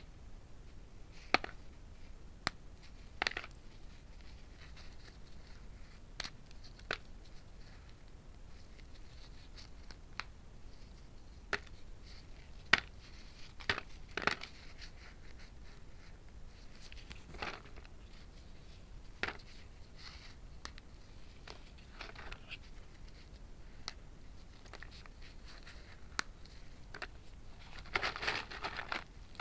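Crunching of roasted multani mitti (fuller's earth clay) chunks: sharp, irregular crunches and snaps every second or few, with a quicker run of crunches near the end.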